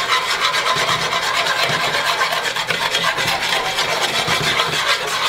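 Metal tongs stirring a pot of gravy and onions, scraping quickly and repeatedly against the bottom and sides of a large aluminum roasting pot.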